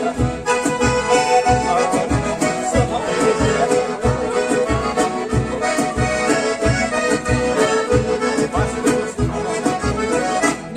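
Accordion-led gaúcho dance music, a xote or vanerão style tune, playing with an even bass beat of about two beats a second. It breaks off at the very end.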